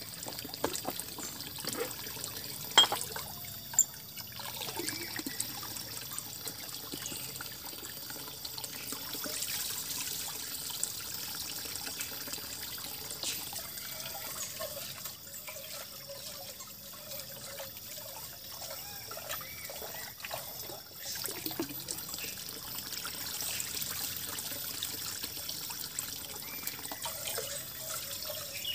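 Water trickling steadily while rice is washed, with two sharp knocks about three and four seconds in.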